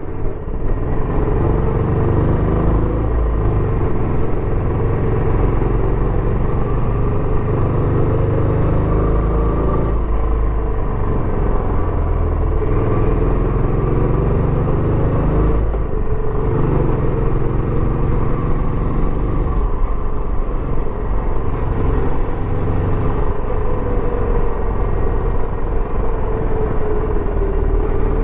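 Royal Enfield Bullet 350X single-cylinder engine running through its stock exhaust while being ridden, a steady thumping exhaust note that rises and falls gently in pitch with the throttle.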